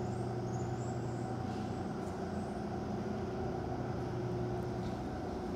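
Steady machine hum with several constant tones, running evenly without change.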